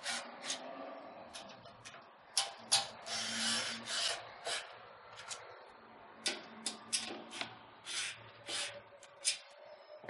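Hand screwdriver turning power-supply mounting screws into a steel PC case: a string of short, irregular metal scraping and grinding strokes as the screws thread into the case, with brief pauses between turns.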